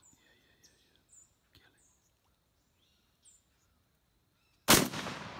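A shotgun shot about three-quarters of the way in, a single sharp blast whose echo fades slowly through the swamp woods. Before it, several faint, short, high whistled bird calls falling in pitch.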